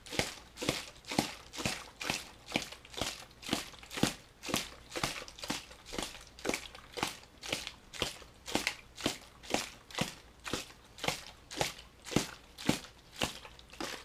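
An empty plastic water bottle being squeezed and crinkled in the hand, crackling in a steady rhythm of about two crunches a second. Recorded through a GoPro HERO3 White's built-in microphone.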